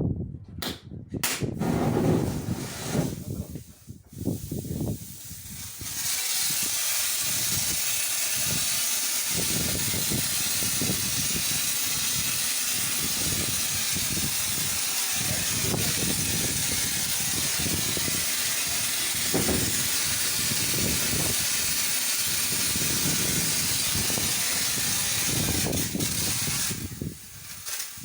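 Steady loud hiss of a high-pressure jet, starting about six seconds in and cutting off abruptly near the end, after a few clicks and knocks.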